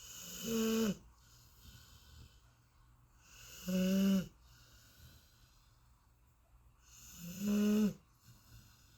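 Golden retriever snoring in deep sleep: three snores, each about half a second to a second long, coming roughly every three and a half seconds, with quieter breathing in between.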